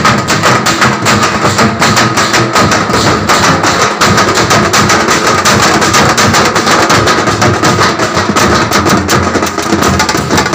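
A band of drummers beating large bass drums and smaller side drums with sticks, playing a fast, loud, unbroken rhythm.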